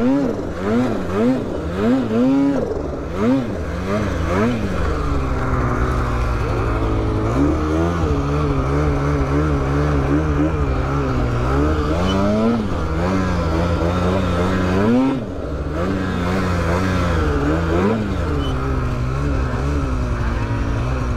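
Turbocharged mountain snowmobile engine revving hard through deep powder. Its pitch swings up and down with quick throttle blips over the first few seconds, then holds at high revs with smaller swells and a short drop about fifteen seconds in.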